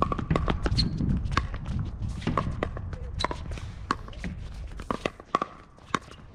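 Pickleball paddles striking a plastic pickleball during a doubles rally: a quick run of sharp pops, each with a brief ring, coming about every half second to a second.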